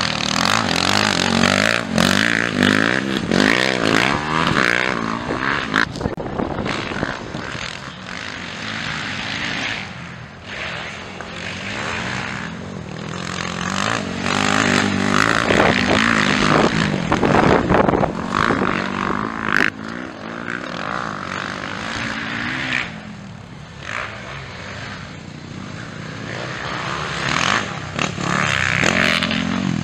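Motocross dirt bike engines revving hard, the pitch repeatedly climbing and dropping as riders accelerate out of turns and shift, with bikes passing close by.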